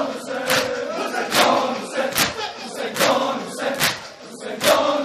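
A large crowd of mourners doing matam, striking their chests in unison about once every 0.8 seconds, six strikes in all, while many male voices chant a nauha between the strikes.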